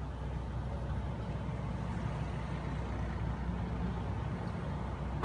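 Steady low engine rumble of street traffic.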